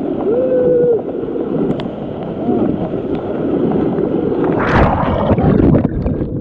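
Rushing river rapids pouring over a man sitting in the current, a loud steady rush of white water close to the microphone. About half a second in he lets out a short held 'aah'; near the end the water surges in louder splashes and gurgles as the camera dips under the surface.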